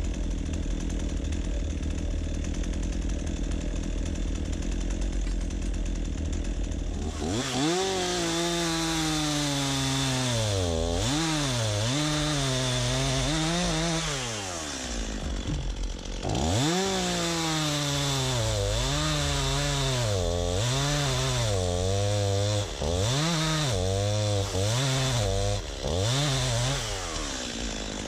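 STIHL MS 251 C chainsaw running low and steady for several seconds, then cutting log rounds. The engine note repeatedly sags as the chain bites into the wood and climbs again as it frees, with a brief easing off midway.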